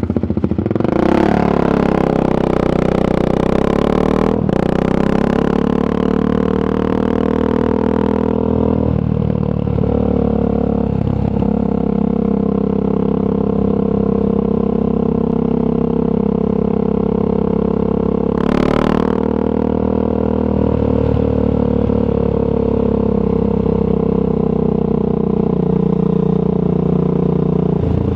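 Triumph Scrambler 400 X's single-cylinder engine through a Zard aftermarket exhaust, running on the move. Its pitch rises and falls as the rider opens and closes the throttle and changes gear.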